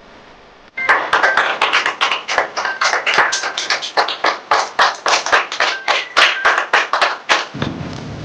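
Hand clapping: a quick run of sharp, separate claps, about five a second, starting about a second in and stopping shortly before the end.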